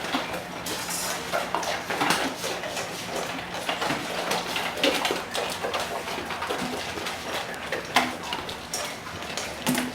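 Dogs eating from their bowls: irregular clicks, crunches and clinks of the bowls throughout.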